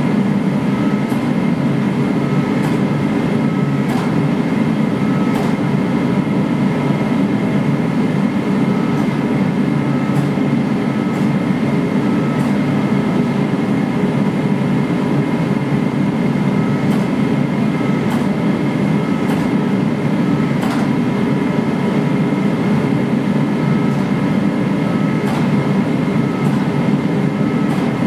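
Gas forge burners running with a steady, loud roar and a thin steady whine above it, while a sword blade heats inside; a few faint metallic ticks come through now and then.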